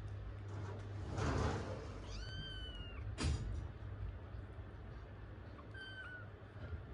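Newborn kitten mewing: a high, thin cry of under a second about two seconds in, and a shorter one near the end. A rustle just before the first cry and a sharp click just after it.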